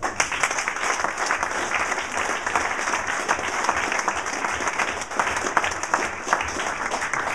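Audience applauding: many hands clapping densely, starting abruptly and dying away as the speech resumes.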